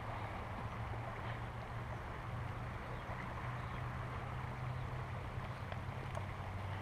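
Creek water flowing steadily, an even rushing with a low steady hum underneath.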